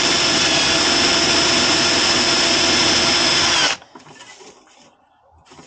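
Power drill with a 3 mm bit running at a steady speed, drilling a hole through the curtain rail, then stopping abruptly about three and a half seconds in. Faint handling noises follow.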